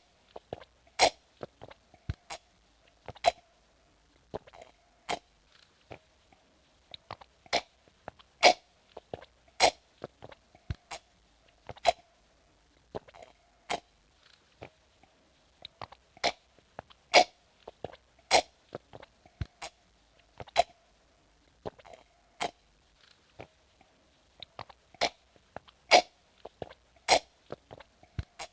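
A person sipping and drinking water from a glass: a long run of short, sharp mouth sounds, about one a second, some much louder than others.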